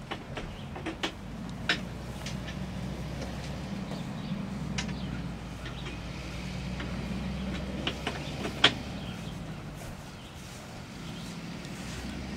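An engine running steadily at idle, a low, even hum, with a few sharp knocks and clicks scattered over it, the loudest near the middle.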